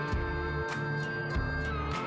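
Background music: an instrumental stretch of a song, with a steady drum beat under sustained chords and no singing.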